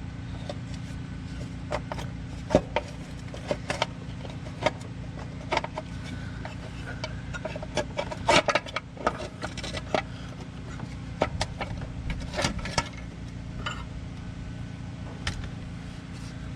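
Scattered metal clicks, knocks and clinks as loose bolts and the valve cover come off a 1985 Chevy S-10's engine, over a steady low hum.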